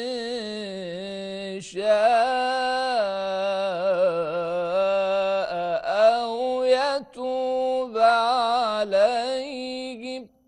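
A man's voice reciting the Quran in a melodic, chanted style, drawing out the words 'in shā'a' over long held notes with wavering ornaments. The voice stops just before the end.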